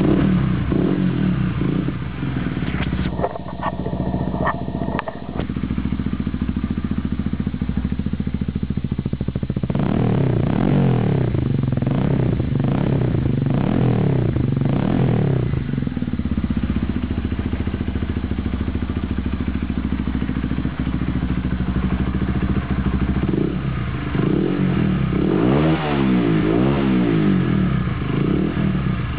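Honda CBR125R's single-cylinder four-stroke engine through a Scorpion exhaust with its baffles removed, starting up and running. It is blipped up and down on the throttle repeatedly from about ten seconds in, settles back to idle, then is revved again near the end.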